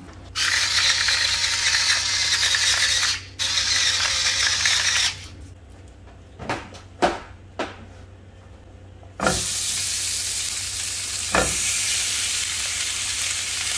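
A loud hiss for about five seconds, then a quieter stretch with a few light clicks. About nine seconds in, with a knock, duck breasts and legs are laid into a dry, preheated nonstick frying pan and start sizzling steadily, with another knock a couple of seconds later.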